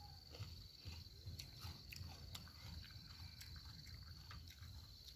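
Close-mouthed chewing of a raw sweet snack pepper, soft wet chews with small clicks about twice a second. A steady high insect trill runs behind.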